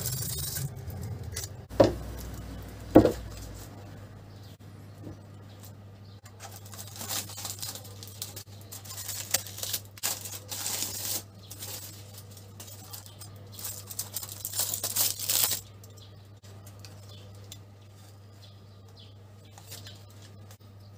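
Two sharp knocks, then crinkling and rustling in bursts as the aluminium foil and baking-paper cover is peeled back off a roasting pan.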